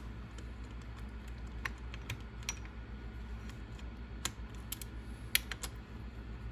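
Small hard parts and tools clicking and tapping irregularly while an RC car's steering bell crank assembly is put together by hand, over a low steady hum.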